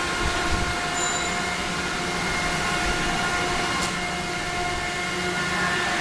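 Steady machine noise with several held whining tones.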